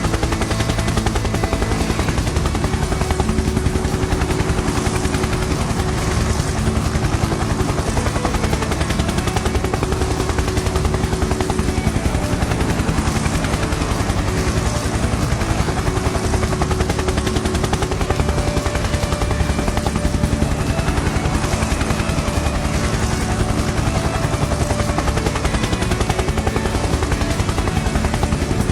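A motor running steadily with a fast, even chop.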